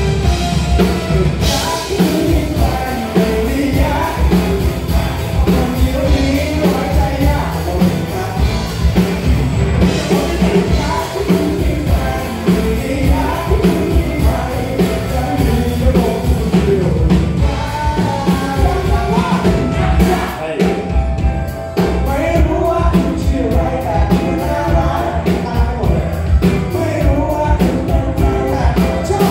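Live rock band playing with male lead vocals over electric guitar, bass guitar and drums. The drums and cymbals drop out briefly about twenty seconds in before the full band comes back.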